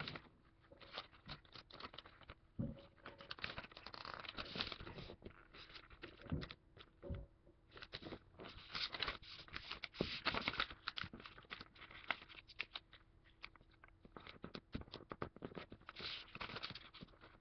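Paper being folded by hand: rustling and crinkling as fingers slide along and press down the creases, in irregular bursts with short pauses.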